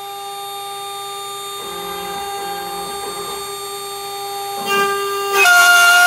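CNC router spindle running with a steady high whine while milling a tenon in a wooden beam. Near the end it gets louder and rasping, and its pitch dips as the bit cuts into the wood under load.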